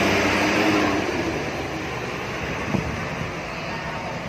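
Hino RK8 R260 coach's diesel engine running as the bus drives away, loudest in the first second and then dropping off as it moves into the distance.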